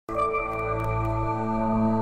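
Ambient music of long held chords that starts suddenly, with a few brief sparkling notes in the first second.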